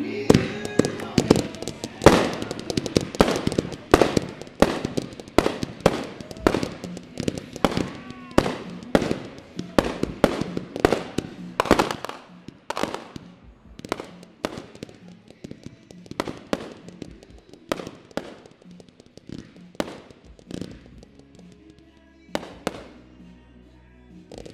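Rapid barrage of aerial firework bursts, a fireworks finale: sharp bangs two to three a second, thinning out about halfway through and pausing briefly before a few more bangs near the end.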